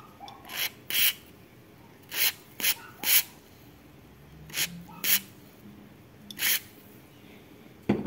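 Aerosol lubricant sprayed through a thin straw onto the shaft bearing of a Whirlpool washing-machine motor, in about eight short hissing squirts.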